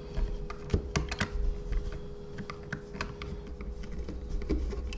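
Ball-end Allen key turning socket-head bolts at a slight angle to fasten a 775 DC motor into a 3D-printed plastic gearbox body: a run of small, irregular metal-on-plastic clicks and ticks.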